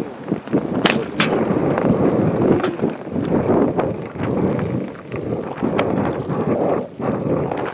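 Wind buffeting the microphone in uneven gusts, with a few sharp clicks over it, two close together about a second in and another a little later.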